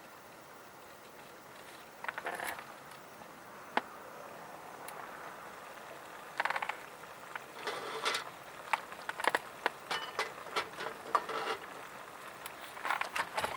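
Irregular clicks and light metallic rattles in short clusters, denser in the second half: small metal camp-cooking gear being handled.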